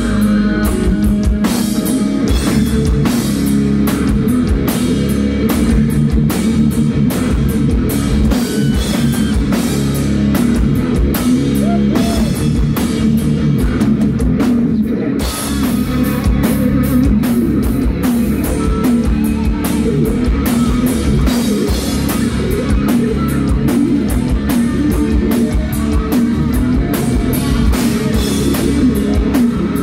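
Heavy metal band playing live: distorted electric guitars, bass guitar and a drum kit in an instrumental passage with no vocals, with a momentary drop in the cymbals about halfway through.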